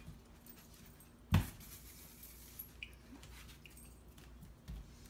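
Quiet room tone with one sharp knock about a second and a half in, and a few faint ticks after it.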